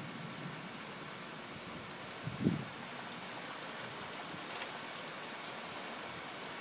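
Steady rain falling, an even hiss with no break. A brief low thump about two and a half seconds in stands out as the loudest moment.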